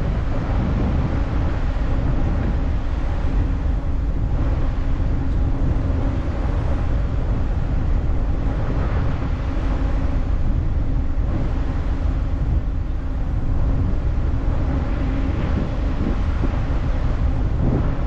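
Steady low rumble of a ferry's engines under way, with a faint hum running through it.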